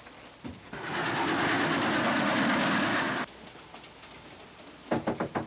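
Train running noise: a loud, rapid clickety-clack rattle of carriage wheels on the rails, heard through an open door between carriages. It swells up about a second in and cuts off suddenly after some two and a half seconds, as the door shuts again.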